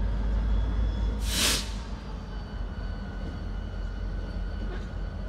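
Diesel-electric freight locomotives, a Santa Fe-painted unit leading a BNSF unit, moving slowly with a steady deep engine rumble. About a second in comes a short, loud hiss.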